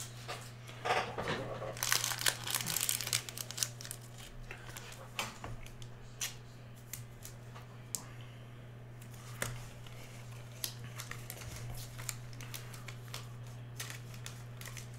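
Clear plastic wrapping crinkling and crackling as trading cards are unwrapped and handled, busiest and loudest in the first few seconds, then scattered quieter crinkles. A steady low hum runs underneath.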